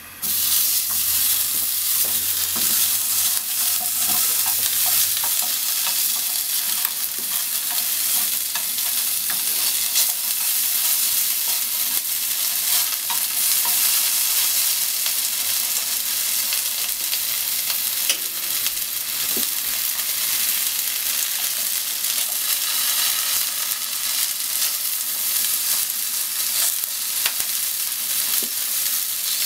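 Sliced ham sizzling steadily in a nonstick frying pan, starting suddenly at the start. Occasional light clicks and scrapes come from the wooden spatula and chopsticks as the slices are turned and pushed around.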